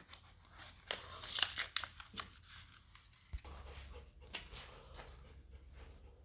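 Hands handling spark plug wires and their rubber boots while greasing them: rustling and small clicks, busiest about a second in, over a faint low hum.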